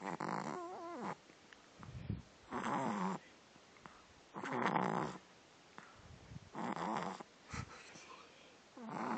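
French bulldog puppy snoring in its sleep: a rasping snore about every two seconds, five in all, with short low snorts between some of them.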